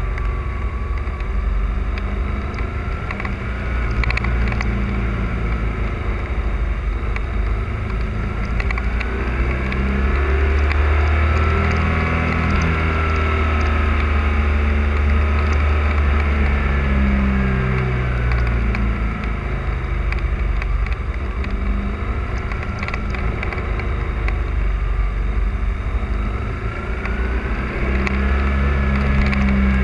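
Motorcycle engine running under load on the move, its pitch rising and falling several times as the rider opens and closes the throttle through a series of bends.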